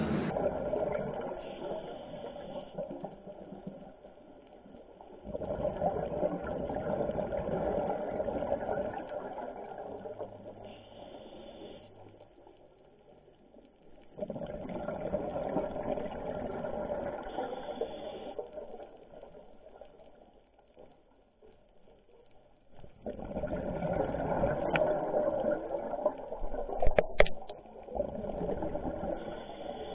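Underwater recording of a scuba diver's exhaled bubbles. A bubbling rush swells and fades three times, each lasting several seconds. There is a sharp click near the end.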